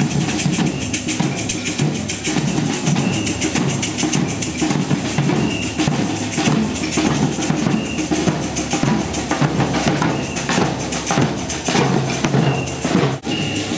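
Marching street drum group playing a steady rhythm on large bass drums and snare drums, the strikes coming thick and even.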